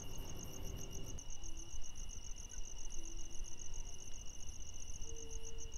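Crickets chirping in a steady, fast-pulsing night chorus over a low rumble, with a few faint, short pitched tones now and then.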